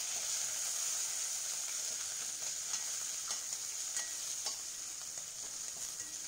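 Green chillies and curry leaves sizzling in hot oil with mustard seeds and cumin in a metal kadai, stirred with a metal ladle. A steady frying hiss, with a few light clicks from the ladle against the pan.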